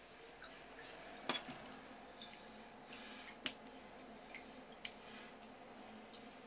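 Kitchen knife trimming blanched pufferfish skin on a wooden cutting board: a few faint, sharp clicks of the blade meeting the board, the loudest about three and a half seconds in.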